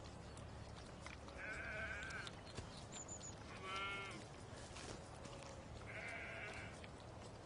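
An animal calling three times, each call high-pitched, wavering and just under a second long, spaced about two seconds apart.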